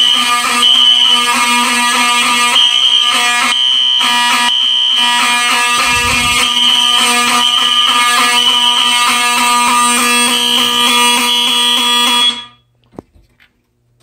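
Fire alarm horns sounding together on a system just activated from a pull station: a Wheelock Exceder horn strobe and a 1978 Wheelock 7002. The sound is a loud, steady buzzing tone with a higher horn tone that breaks in and out over it. The alarm cuts off suddenly near the end.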